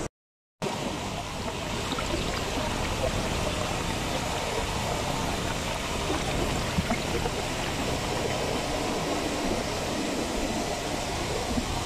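Clarified water spilling over the weir plates of a thickener into its overflow launder: a steady rush of running water.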